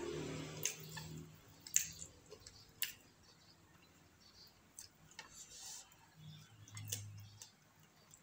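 Fingers picking grilled fish and rice off a plate, making scattered small sharp ticks and clicks, the loudest ones in the first three seconds, with quiet chewing.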